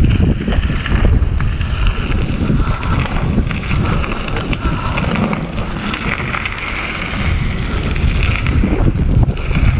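Wind rushing over the camera microphone, with mountain bike tyres rolling over loose gravel and scattered clicks and rattles from the bike on a fast downhill run.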